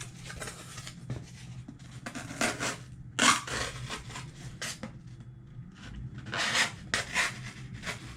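Sheepsfoot blade of a NexTool Knight multitool cutting through thick cardboard in a series of uneven scraping strokes. It is slow going because the blade is thick, with a short grind.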